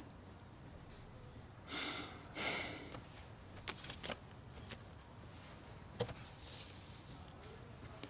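Soft rustling of paper and cloth as a photograph is taken out, twice about two seconds in, followed by a few light taps as it is handled and laid on a table.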